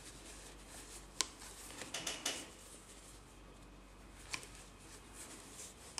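Soft handling sounds of crocheting thick t-shirt yarn around a wooden rod with a metal hook: faint rustling, with a sharp click about a second in and another past four seconds.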